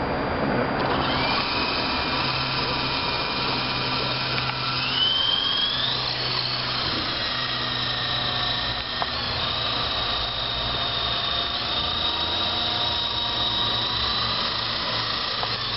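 Small remote-control toy helicopter (Bullbat Sky Spy) with its electric motor and rotors running in a high whine. The pitch rises about five seconds in as it is throttled up to climb for maximum height, then holds steady.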